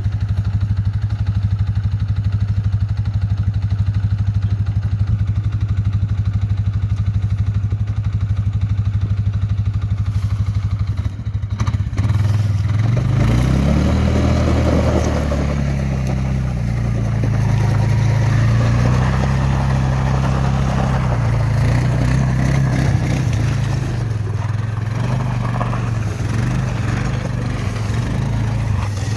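A motor vehicle engine running. It holds one steady pitch for about twelve seconds, then rises and falls in pitch as it pulls away and drives.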